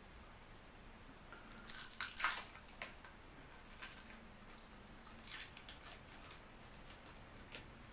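Handling sounds as small parts of a model steam engine are picked up and worked by hand: scattered short rustles and light clicks, with a cluster about two seconds in and single ones further on.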